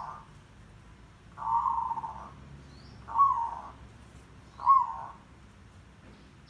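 Zebra dove (merbok) giving its loud, rough cooing call. The tail of one call is heard at the start, then three more calls follow, each under a second long and about a second and a half apart.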